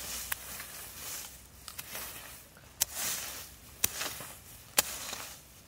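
Dry grass and pine needles being scraped and swept aside with a knife blade: repeated rustling swishes, with four or five sharp clicks.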